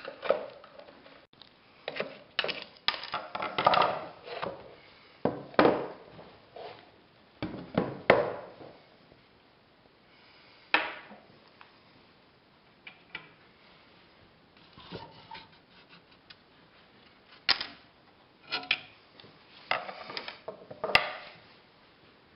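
Irregular knocks and clanks of a push reel mower's metal parts (frame, wheels and pinion gears) being handled and set down on a workbench during reassembly, with a quieter stretch in the middle.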